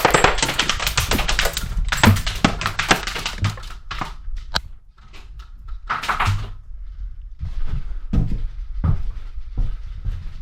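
Airsoft gas-blowback rifle running on an HPA adapter, firing rapid strings of sharp clacks over the first few seconds. Scattered knocks and low thuds follow.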